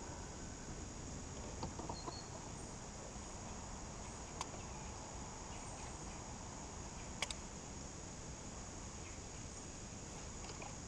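Steady high-pitched chirring of insects, with a few short sharp clicks standing out over it.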